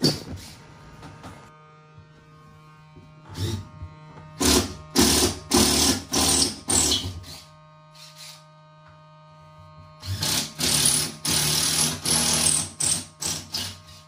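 Power drill-driver run in short trigger bursts, each under half a second: one run starting about three seconds in and a second run starting about ten seconds in.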